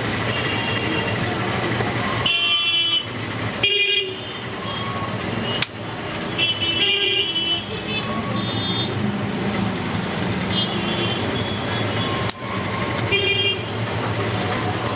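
Busy road traffic, a steady engine and tyre rumble, with vehicle horns honking in short bursts several times.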